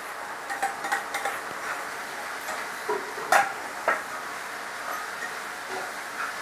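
A pan of onion-tomato masala cooking with a steady sizzle, with a few short utensil clinks against the pan, a cluster near the start and two more past the middle.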